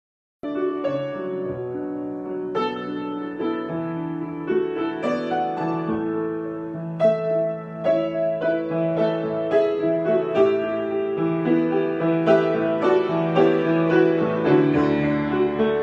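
Solo piano improvisation: sustained chords and bass notes under a slow-moving melody, after a brief sudden dropout right at the start.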